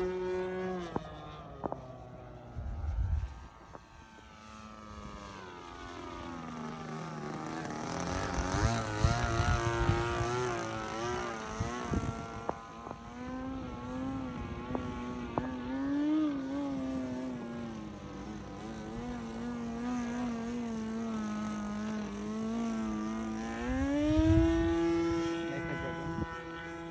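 20cc two-stroke petrol engine of a model airplane in flight, a steady buzzing drone whose pitch slides down about a second in, wavers up and down through the middle and climbs again near the end as the plane passes and the throttle changes.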